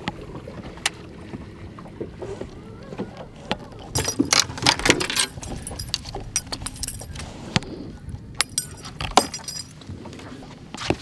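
A run of sharp clicks and knocks from fishing tackle being handled on a bass boat's deck, over a steady low hum. The clicks bunch up about four seconds in, with a few more scattered later.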